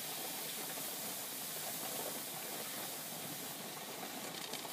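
Pressure canner hissing steadily as steam escapes through the lid's air vent/cover lock before it pops up and seals, a sign the canner has not yet reached full pressure.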